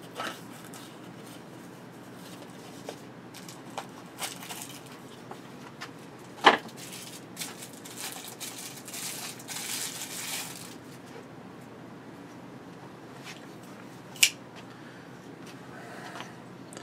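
Knife packaging being handled: a small box opened and a clear plastic sleeve crinkling, with scattered small clicks. There is a sharp knock about six and a half seconds in, a stretch of crinkling from about eight to ten seconds, and another sharp click near fourteen seconds.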